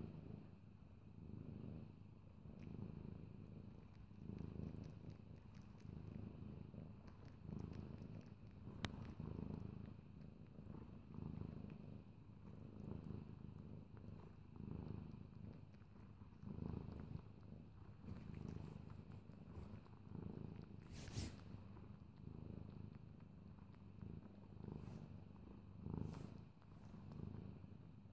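Domestic cat purring steadily while suckling on a crocheted scarf, the purr swelling and fading with each breath about every two seconds.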